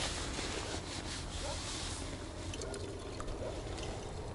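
Rustling of a cloth bag as live fishing maggots are shaken out of it into a glass bowl, with a faint trickling patter of them falling in.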